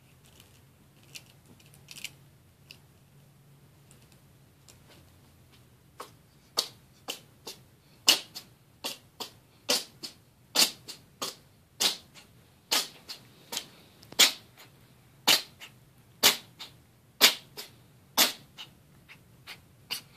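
A cat sneezing over and over: after a few faint clicks, a long run of short, sharp sneezes begins about six seconds in, roughly two a second, some in quick pairs.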